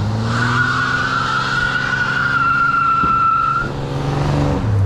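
Chevy S10 pickup accelerating hard, its engine revs climbing steadily with no valvetrain tick after a valve adjustment, while the tyres give a steady squeal for about three seconds. Near the end the revs drop suddenly, as at a gear change.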